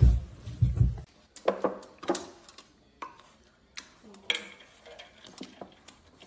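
Yellow Labrador puppy pawing in stainless-steel bowls of ice water: scattered sharp clinks and knocks of the metal bowls and ice cubes. A loud rough noise fills the first second and cuts off suddenly.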